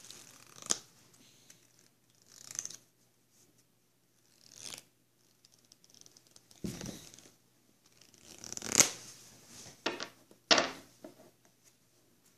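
A deck of playing cards being shuffled by hand: a string of separate rustling, riffling bursts a second or two apart, with a dull thump about halfway through.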